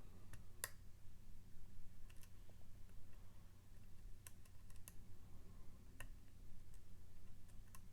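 Faint, scattered clicks, about six at irregular intervals, from a lock pick tapping the pins inside a Mul-T-Lock MT5+ dimple lock.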